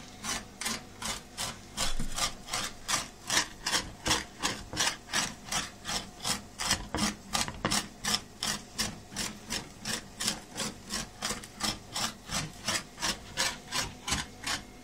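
Mezzaluna knife rocking through fresh basil leaves on a wooden cutting board, a steady rhythm of about three chopping strokes a second.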